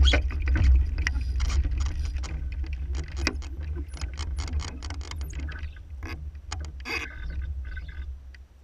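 Small wooden sailing boat under way: wind rumbling on the deck-mounted camera's microphone, with water splashing along the hull and scattered clicks and knocks from the boat. It dies down near the end.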